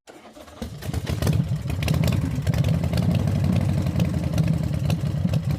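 An engine running, building up over the first second or so and then running steadily with a rapid clatter of clicks.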